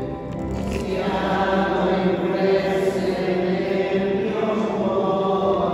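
Voices singing a slow devotional hymn together, with long held notes.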